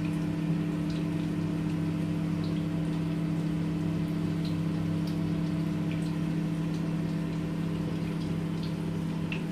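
Steady motor hum, unchanging in pitch and level, with a few faint light clicks.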